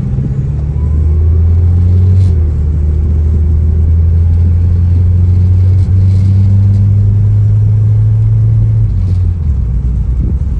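1989 Mitsubishi Starion's turbocharged four-cylinder engine heard from inside the cabin while driving, a steady low drone under light throttle through the automatic transmission. It gets louder about a second in and eases off near the end.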